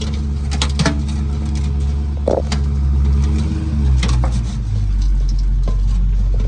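A power tool running steadily with sharp metallic clicks and scrapes while grinding off the exhaust's tack welds; its hum drops in pitch about four seconds in.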